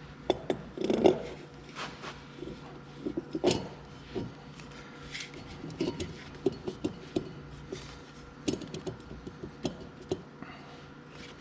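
Irregular metallic clinks and knocks of heavy steel parts: a tractor front-axle hub assembly, hung from an engine hoist, being worked into place on the axle.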